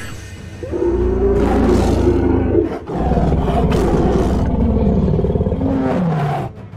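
Two long, low animal roars, cartoon sound effects: the first starts under a second in, the second follows straight after and ends with a falling growl shortly before the end.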